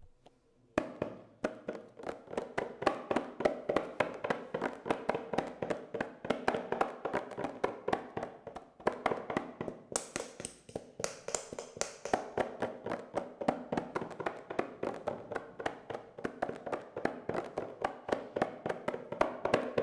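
Small strap-hung hand drum played with bare hands, a fast, steady rhythm of slaps and taps on its head starting about a second in.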